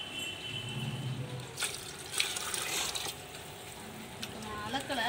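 Water and rice sloshing in a large aluminium cooking pot of biryani, with a louder stretch of liquid noise about two seconds in.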